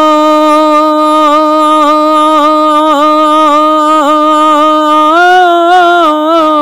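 A man's voice singing a Sufi manqabat unaccompanied, holding one long drawn-out note with small wavering ornaments. The pitch steps up a little near the end.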